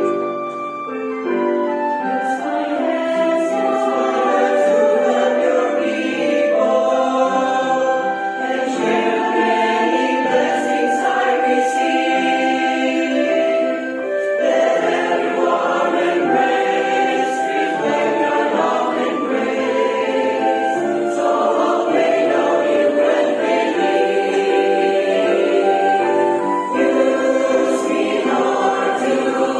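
Chancel choir singing a sacred choral anthem in full, sustained chords, with short dips in volume about a second in and again about halfway through.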